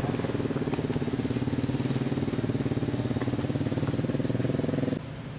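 An engine idling steadily with a fast, even pulse, cutting off suddenly near the end.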